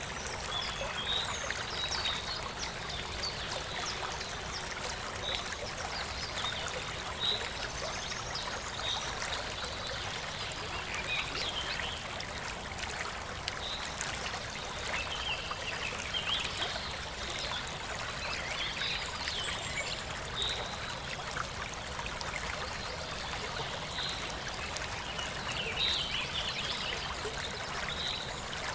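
Pork cubes simmering in their own juices in a pot: a steady bubbling and spattering with many small pops.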